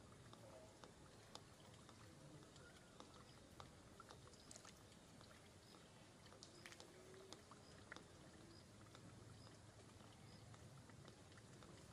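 Near silence: faint background noise with scattered small clicks.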